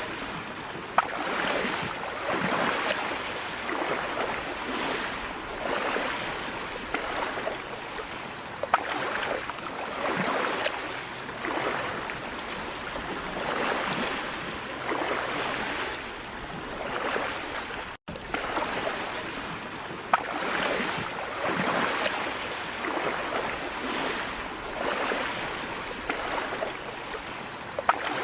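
Floodwater rushing and sloshing, swelling and easing in surges about every two seconds, with a few sharp ticks.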